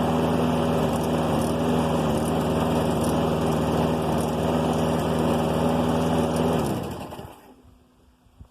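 Briggs & Stratton 675EX single-cylinder engine on a Husqvarna push mower running at a steady speed, then cutting out about seven seconds in and spinning down to a stop, its pitch falling as it dies.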